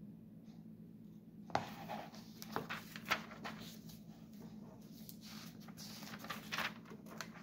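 Glossy magazine pages being turned and smoothed by hand: paper rustling that starts about a second and a half in, with a few sharp crinkles as the sheets flex.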